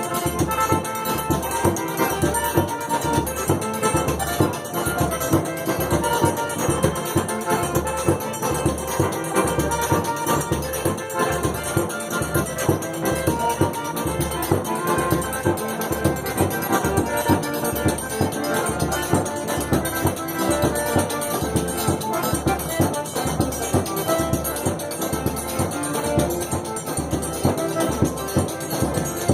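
Forró dance music playing, with a steady low drum beat of about one and a half beats a second under sustained melody notes and rattling percussion.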